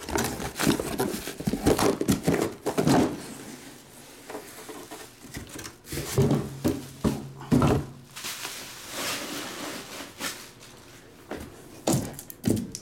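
Shrink-wrapped trading card boxes being lifted out of a cardboard shipping box and stacked by hand: irregular rustling of plastic wrap and cardboard with soft knocks as the boxes are set down.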